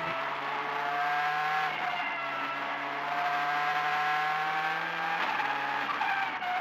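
Engine of a 2008-spec Ford Focus WRC rally car, a turbocharged four-cylinder, heard from inside the cockpit under hard acceleration at high revs. The pitch rises and falls, with brief breaks about two and five seconds in as the driver changes gear.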